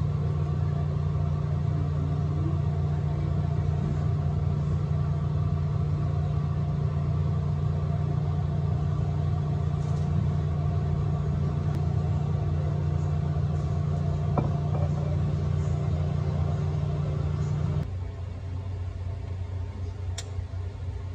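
Steady low machine hum. It drops to a quieter, lower hum near the end.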